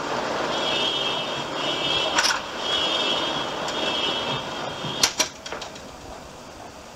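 Steady traffic noise with a high electronic beep repeating in short pulses for about four seconds. Then two sharp clicks come about a fifth of a second apart, after which the background falls quieter.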